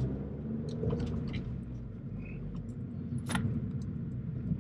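Fiat Abarth 500's turbocharged 1.4-litre four-cylinder engine running steadily as the car drives along, heard from inside the cabin. A few light clicks come about a second in, and a sharper one a little past the middle.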